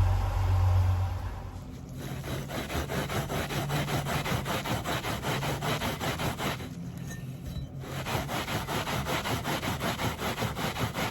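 Aluminium part being brushed by hand with an abrasive to give it a brushed finish: quick, even back-and-forth scraping strokes, about three a second, with a pause of about a second near the middle. A low hum stops about a second and a half in, before the strokes begin.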